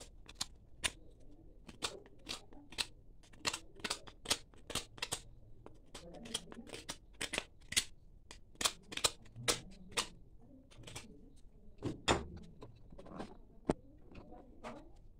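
Flat steel blade scraping the edge of a coconut-shell disc by hand: a run of short, sharp scraping strokes at an uneven pace of about two a second.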